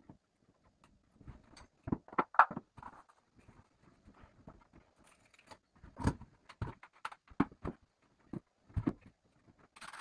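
Irregular knocks, clicks and rustles of tools and a wooden vanity unit being handled, the loudest knock about two and a half seconds in.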